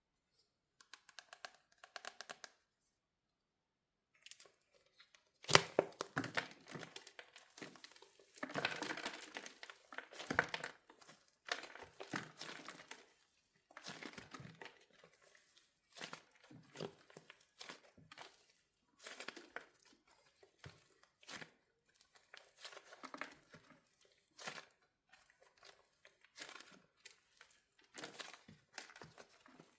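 Wax shell on a soap squishy crackling and snapping as it is squeezed: irregular runs of dry crackles, with the sharpest crack about five and a half seconds in.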